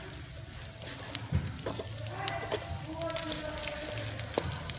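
A metal spatula stirring and scraping chicken and crisp fried lemongrass around a metal wok, with frequent sharp clicks of metal on metal over a soft sizzle.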